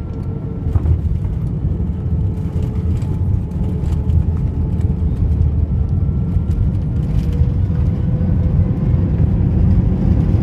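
Airbus A320neo cabin noise on landing: a thump of touchdown about a second in, then a steady low rumble of engines and wheels on the runway with a faint engine whine, growing gradually louder as the aircraft decelerates with its ground spoilers up.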